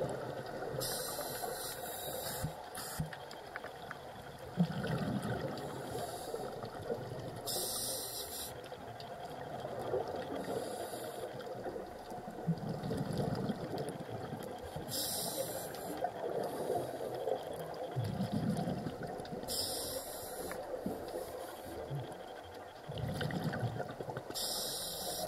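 Scuba diver breathing underwater through a regulator: a hissing, bubbling burst about every four to five seconds, over a steady low underwater rumble.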